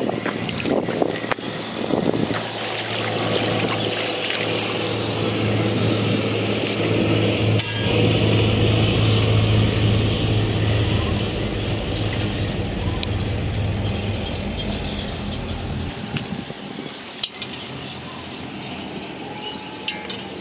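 A motor engine drones steadily, growing louder toward the middle and fading out about three-quarters of the way through. Water splashes briefly near the start as a plate is rinsed in the pond.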